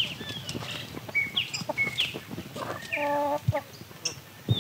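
Rural village ambience: small birds chirping in short high calls throughout, and a chicken calling once, loudly, about three seconds in.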